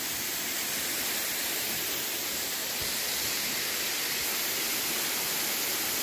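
Small waterfall splashing steadily: an even rushing hiss with no breaks.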